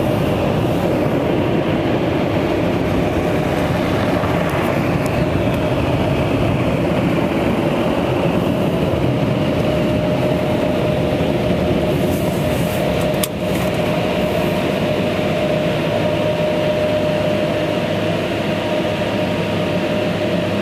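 Laserwash car wash blower dryer running, heard from inside the car: a loud, steady rush of air with a steady whine over it. The owner says the dryer needs work, as it barely dried the car.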